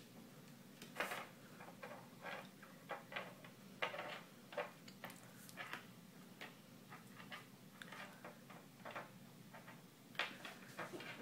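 Light, irregular taps and scratches of a kitten's paws and claws on a wooden desk and loose paper, about one or two a second.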